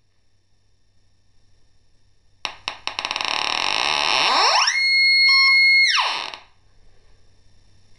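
Pulse-induction metal detector's audio signal: a few clicks about two and a half seconds in build into a loud crackling buzz, then a tone glides steeply up, holds a high pitch for about a second and glides back down before the sound stops, the detector's response to metal coming near its search coil.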